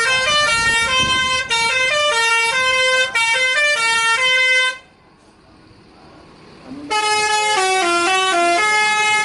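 Bus's basuri telolet musical air horn playing a quick tune of stepped notes. It stops about five seconds in, and a second tune starts about two seconds later.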